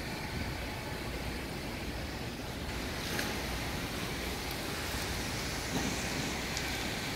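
Wind on an open ship's deck rushing over the phone's microphone: a steady noise that grows brighter and hissier about three seconds in.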